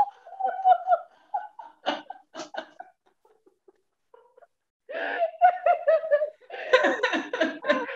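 Two women laughing heartily in bursts during a laughter-yoga exercise. The laughter fades out about three seconds in, then breaks out again about five seconds in.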